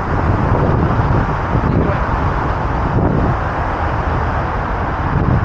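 Steady rumble of traffic on the bridge, mixed with wind buffeting the microphone.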